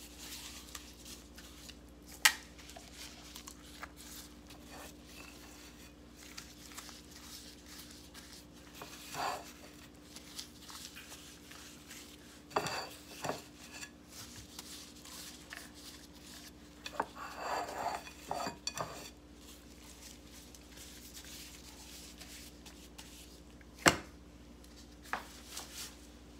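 Sporadic kitchen clatter of utensils and dishes on the counter. There are a few sharp knocks, the two loudest about two seconds in and near the end, with short bouts of scraping and clinking in between. A faint steady hum runs underneath.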